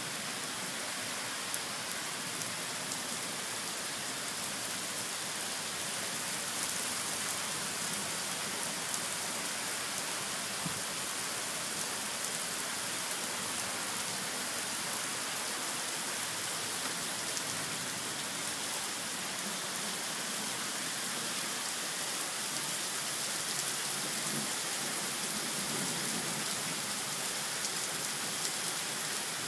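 Heavy rain pouring steadily onto a paved street and garden plants: an even hiss with scattered individual drop ticks.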